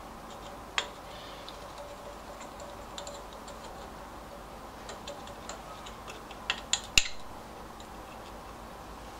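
Light metallic clicks and taps of small parts being handled and fitted on an engine. There is one sharp click about a second in, faint ticks scattered through, and a quick run of three sharper clicks near the end.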